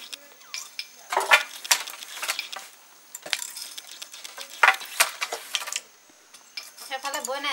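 Bamboo-framed handloom being worked: an irregular run of sharp wooden clacks and knocks from the loom's moving parts, pausing briefly near the end.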